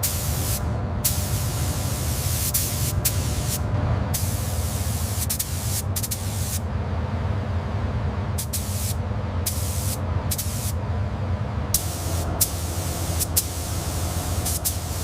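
Compressed-air spray gun hissing in repeated bursts as the trigger is pulled and released, over a steady low hum.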